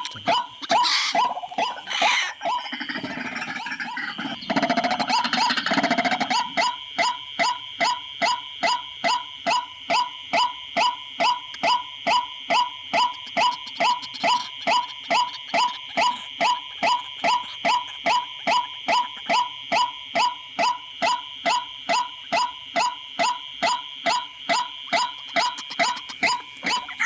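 White-breasted waterhen calls: irregular at first, then settling from about six seconds in into a fast, very even series of about two to three harsh notes a second, over a steady high-pitched tone.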